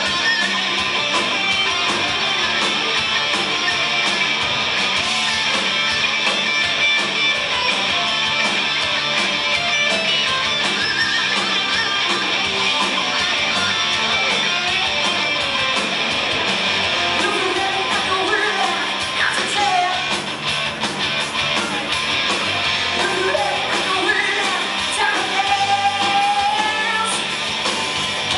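A live hard rock band playing loud: overdriven electric guitars, bass guitar and a drum kit, heard through a camera in the crowd. A female lead voice sings near the end.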